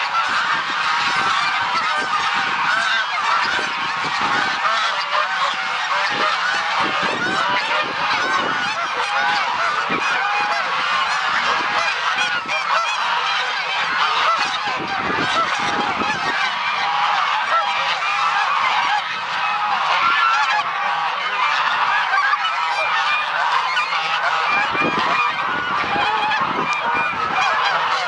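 A large flock of domestic geese, mostly grey and white, honking continuously, with many calls overlapping into a steady, unbroken clamour.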